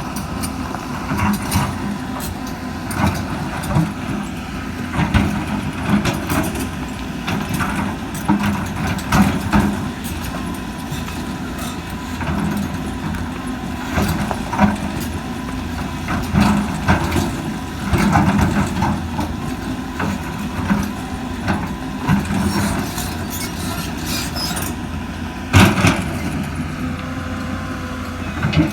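Excavator's diesel engine running steadily, with frequent knocks and clanks as it loads sand into a dump truck, and one loud bang near the end.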